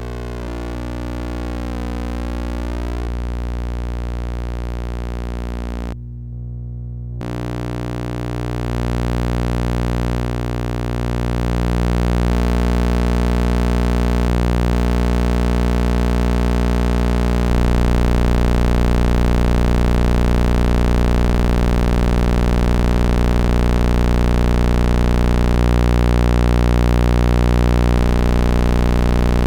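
Old thyratron tube running as a sawtooth oscillator, giving a low buzzing tone with many overtones. The upper tones warble at first and briefly drop out about six seconds in, then the sound grows louder and noisier, stepping up again about halfway through. The odd, shifting tone is put down by the owner to the tube being probably very worn out.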